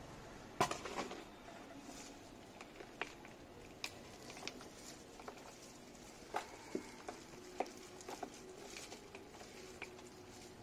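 Potting soil and plastic pots being handled over a plastic tub: scattered light knocks and pattering of soil, the loudest cluster about half a second in.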